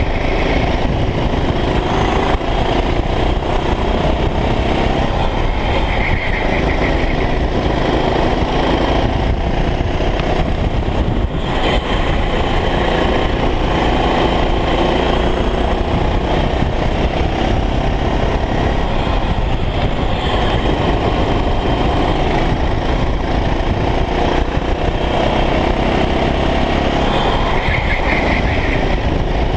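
Go-kart engine running hard at racing speed, its pitch rising and falling as the kart accelerates and slows through corners, with heavy wind rumble on the onboard microphone.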